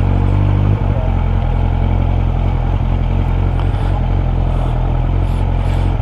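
Suzuki Bandit 600's inline-four engine running steadily at low revs, with a small click a little under a second in.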